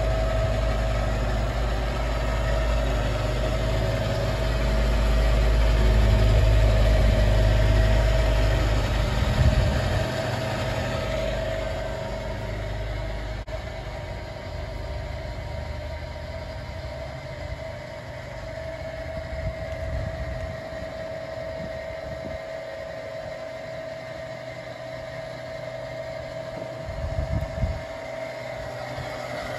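KOFAMA Koronowo OLNG-7 knife and disc sharpener running, its electric motor and cup grinding wheel spinning with a steady hum. About twelve seconds in, the hissing upper part of the sound falls away.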